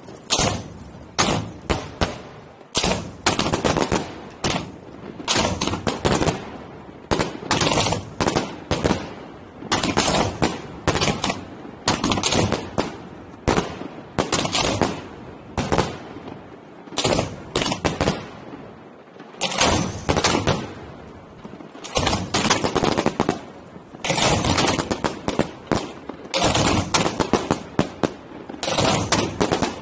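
Fireworks shells firing from mortar racks at close range: rapid volleys of sharp bangs, close together like machine-gun fire, with short pauses between volleys and a longer lull a little past halfway.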